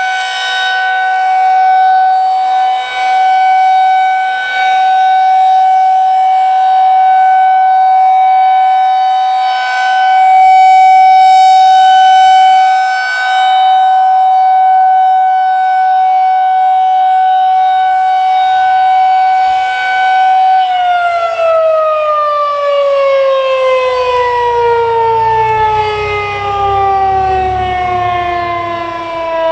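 Federal Signal 2001-SRNB rotating outdoor warning siren sounding a steady, loud tone as the final seconds of its 3-minute alert signal. About twenty seconds in the signal ends and the siren winds down, its pitch falling slowly.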